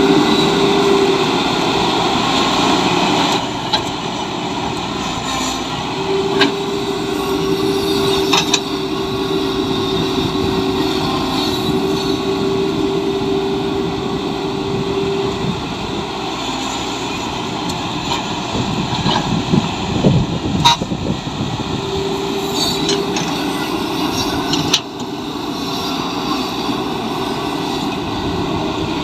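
Caterpillar excavator working: engine running steadily, with a whine that comes and goes, and a few sharp knocks and clanks. The sound changes abruptly twice.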